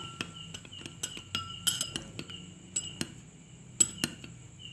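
A spoon stirring honey into a small amount of herbal liquid in a dish, clinking irregularly against the sides with short ringing knocks. The loudest knock comes near the end.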